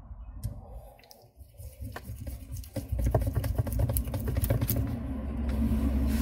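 Screwdriver tightening the side-cover screw on a Canon 337 toner cartridge: a few scattered clicks, then from about three seconds in a fast run of small scratchy clicks of the metal driver turning against the plastic.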